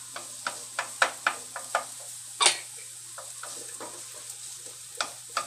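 Wooden spatula knocking and scraping in a frying pan as chopped onion and garlic are stirred in hot oil, over a light sizzle. There is a quick run of taps in the first two seconds, a louder scrape about two and a half seconds in, and two more taps near the end.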